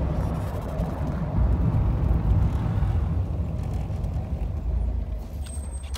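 Toyota 22R four-cylinder engine running steadily, a low rumble heard from inside the car.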